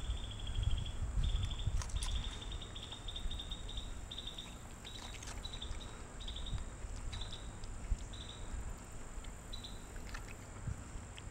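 Insect chirping: short, high, rapidly pulsed chirps repeated over and over, stopping near the end. Underneath is a low rumble of wind on the microphone.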